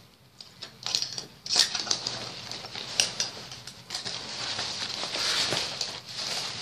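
Backpack fabric rustling and shuffling as bags are handled and clipped together, with several sharp clicks from the clip and strap hardware, starting about a second in.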